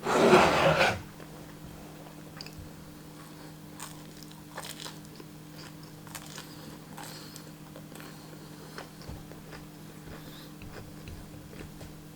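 A loud, crunchy bite into a grilled sandwich's toasted bread, lasting about a second, followed by faint chewing with small mouth clicks.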